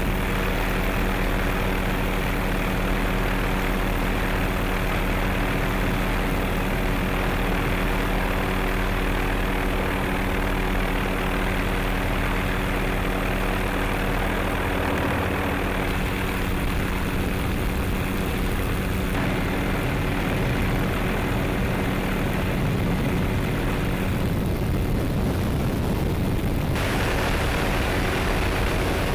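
MD 530F Cayuse Warrior light helicopter in flight: a steady drone of its rotors and single turboshaft engine, with several held tones over the rush of noise. The tone shifts slightly about halfway through and again near the end.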